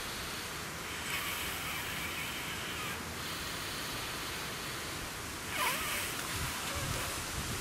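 A man's breath blown into the valve of a 7 cm self-inflating sleeping mat to top it up: one long breathy puff lasting about two seconds, then a shorter, louder one about six seconds in.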